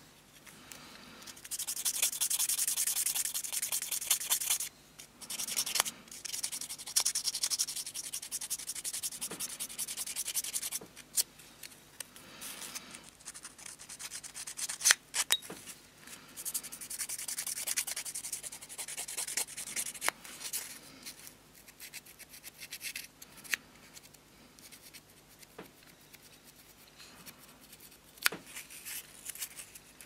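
Hand sanding of an Orlik 153 petrol lighter's metal parts with a grey abrasive stick: runs of quick, scratchy rubbing strokes broken by short pauses, with a few sharp clicks. The strokes grow quieter and sparser in the last third.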